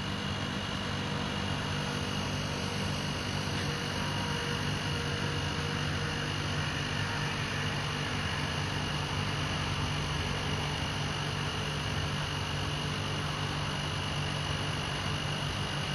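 Steady mechanical hum and hiss with a constant high whine, unchanging throughout.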